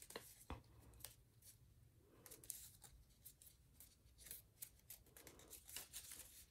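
Faint rustling and crackling of paper being folded and creased by hand, with scattered soft clicks.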